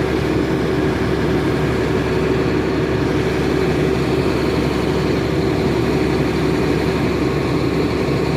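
John Deere excavator's diesel engine running steadily at working revs, a loud, even drone with no change in pitch.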